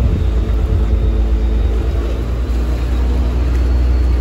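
Boat engine running steadily under way: a continuous low rumble, heard from on board.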